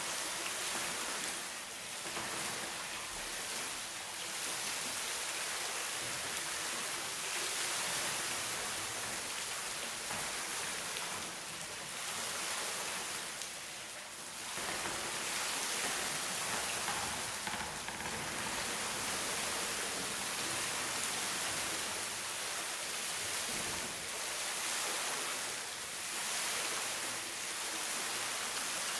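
Steady hiss of falling rain and flowing water, swelling and easing slightly in loudness.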